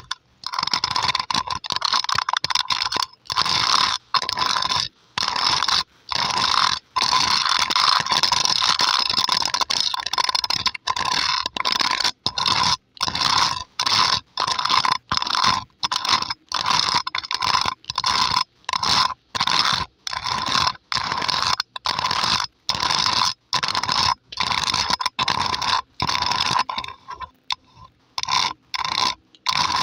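Long polished fingernails scratching over a microphone's metal mesh grille, close up, in quick strokes with brief breaks between them. Near the end the strokes become sparser and softer.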